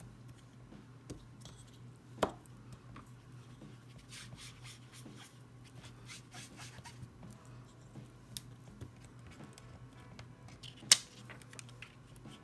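Foam sponge brushing and dabbing ink onto cardstock through a transparency-film stencil: a run of short scratchy swishes in the middle, with two sharp knocks, one about two seconds in and a louder one near the end, as the paper and stencil are handled. A steady low hum underneath.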